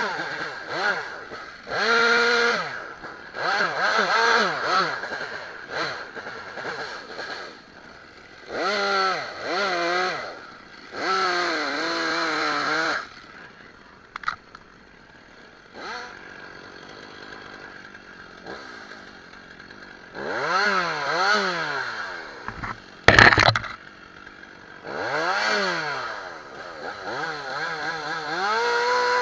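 Stihl chainsaw revved in repeated bursts of a second or two, its pitch climbing and sagging under load, dropping back to idle between cuts while cutting brush. A sharp, loud crack about three-quarters of the way through.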